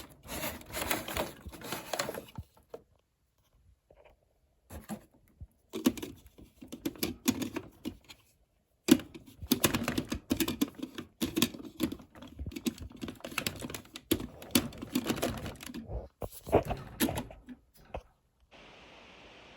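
Hard plastic toy being handled: quick clicks, taps and small rattles of its parts and pieces, in bursts broken by short pauses.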